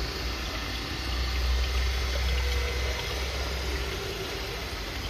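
Water pouring and splashing through a pond filter's sieve belt, over a steady low hum from the filter running at work.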